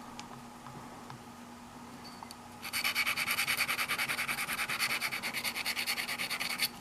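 Rapid back-and-forth scratching strokes of a steel bobby pin's tip rubbed on an abrasive by hand, starting about two and a half seconds in, as the varnish is sanded off the tip to make a lock pick.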